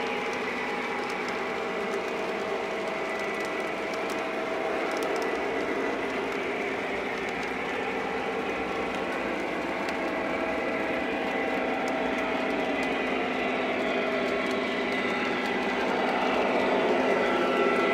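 Lionel O-gauge model trains running on three-rail track: a steady rumble of wheels with motor hum and a few steady whining tones, getting louder near the end.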